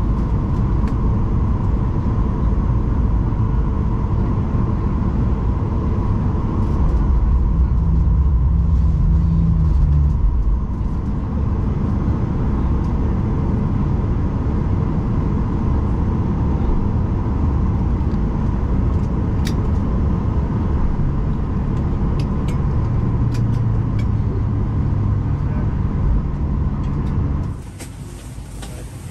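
Boeing 737-800's CFM56-7B jet engines running at taxi power, heard from inside the cabin: a loud, steady rumble with a steady whine and slowly shifting low engine tones. Near the end it gives way abruptly to a quieter, even cabin hum.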